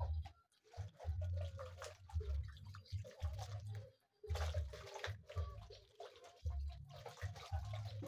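Water poured from a cup splashing and dripping into a plastic basin as hands are rinsed, in short patches. Under it runs an irregular low rumble in bursts.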